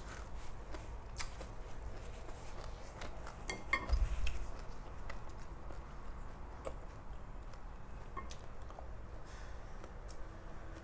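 Close-up eating sounds: a person chewing, with scattered light clicks of a wooden spoon against a plate and a louder cluster of clicks about four seconds in.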